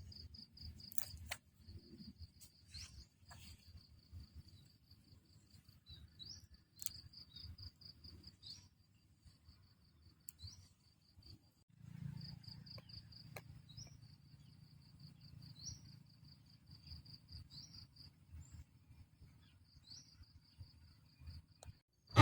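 Crickets trilling: high, rapid pulsed chirps in repeated trains, with a faint low rumble and a few sharp clicks beneath.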